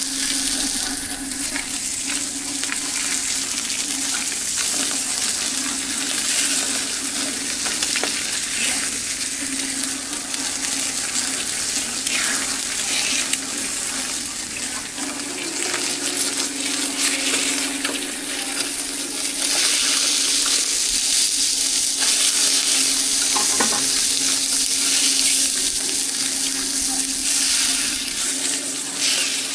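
Food pan-frying in hot oil, a steady sizzle, with a steady low hum underneath.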